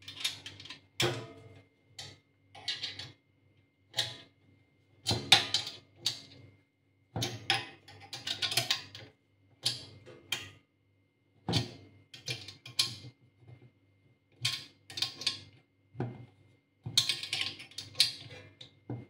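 Small open-end wrench clicking against a nut and the steel bar while tightening a bolt on a black steel pot rack. Irregular sharp metallic clicks, some in quick clusters, about one or two a second.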